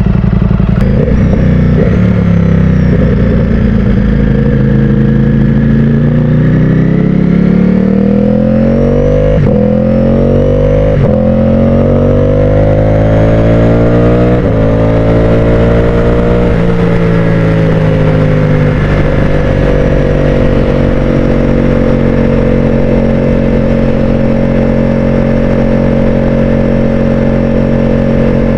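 Ducati Streetfighter V4's V4 engine pulling away from a stop and accelerating hard. The pitch climbs and drops back at several quick upshifts, then the engine settles into a steady cruise from about twenty seconds in.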